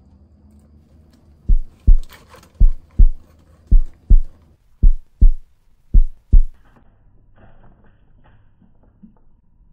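Heartbeat sound effect: five low double thumps, lub-dub, about one a second, stopping about six and a half seconds in.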